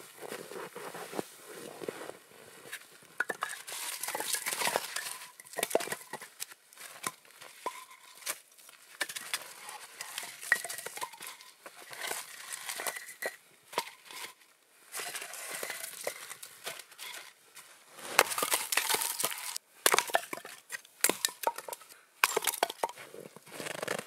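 Snow crunching and a padded winter suit rustling as a person kneels and shifts about, with a reindeer hide being moved and shaken out. The rustling comes and goes irregularly and is loudest about three-quarters of the way through.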